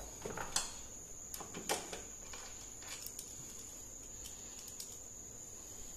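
Scattered light clicks and rustles as screws are fitted by hand into a plastic-wrapped TV stand, over a steady high-pitched whine.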